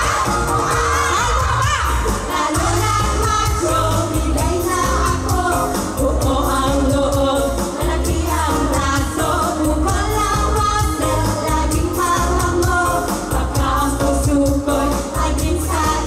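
Pop music with women singing into microphones, played loud over loudspeakers above a steady bass beat.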